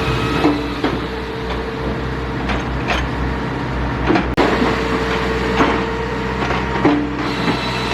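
Firewood-processing machinery running with a steady hum, with irregular knocks and clatters of oak pieces hitting each other and the conveyor.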